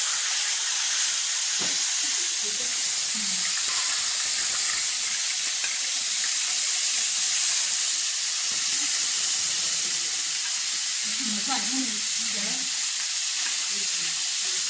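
Fish fillet shallow-frying in hot oil in a pan, a steady sizzle.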